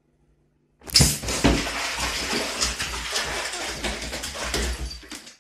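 A cat falling into a bathtub of water: a sudden splash about a second in, then about four seconds of splashing and claws scrabbling against the tub's sides, which stops abruptly.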